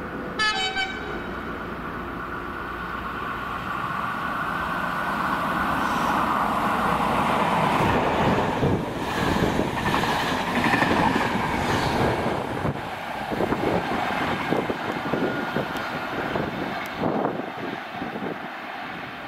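A CP series 5600 electric locomotive gives a short horn toot about half a second in. Then it and its Intercidades coaches pass: a rumble that grows to its loudest about halfway, with wheels clicking over the rails as the coaches go by, fading near the end.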